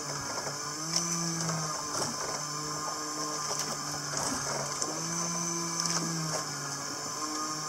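A small motor whining steadily, its pitch stepping up briefly about a second in and again at about five seconds.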